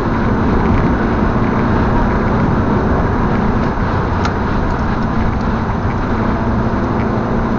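Steady road and engine noise inside a car's cabin at motorway speed, with a low, even drone.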